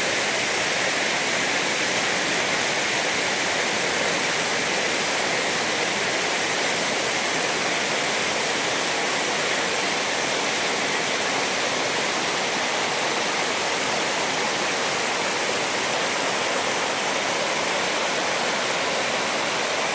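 Orekhovsky waterfall: a steady, unbroken rush of falling water.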